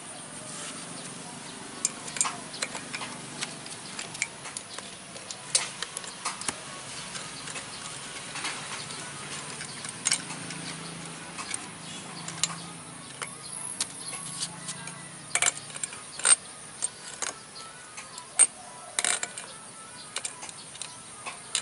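Irregular light clicks and taps of metal being handled and knocked, a few each second, with several sharper knocks in the second half.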